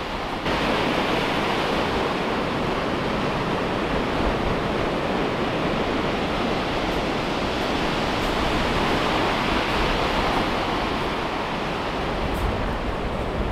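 Rolling surf breaking and washing on a shingle beach: a steady, continuous rush of water noise that grows a little louder about half a second in.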